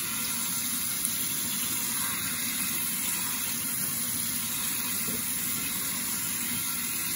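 Cold water running steadily from a kitchen tap, splashing over hard-boiled eggs held in a hand and into a stainless steel sink.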